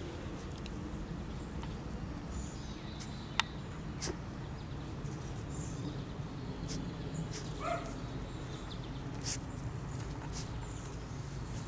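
Young puppies moving about outdoors: scattered small clicks and rustles over a steady low background rumble, with one short squeak about two-thirds of the way through.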